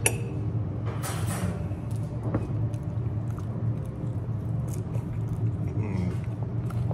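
A man eating a kebab, biting and chewing, with a fork moving over the plate, a sharp click right at the start, and a steady low hum in the room underneath.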